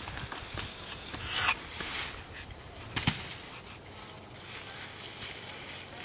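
Dry fallen leaves crackling and rustling under footsteps and a branch dragged across them, with a louder rustle about one and a half seconds in and a sharp knock about three seconds in.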